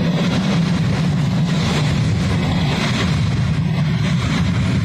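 Freight train of covered hopper cars rolling past close by: a steady rumble of steel wheels on rail.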